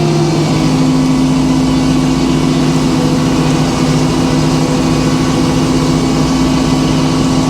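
Sawmill's engine running steadily. About half a second in, its pitch shifts and a new steady tone holds, as if the load changes.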